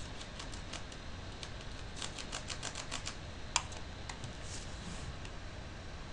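Computer keyboard keys being tapped: scattered light clicks, a quick burst of about eight in the middle, then one sharper click, over a low steady hum.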